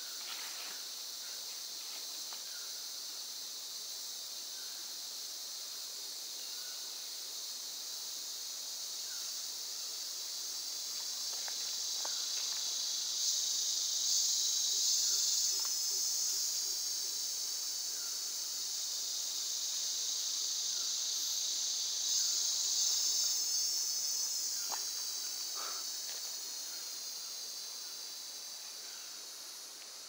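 Rainforest insect chorus: a steady high-pitched buzzing hiss that swells louder twice, around the middle and again later, then fades.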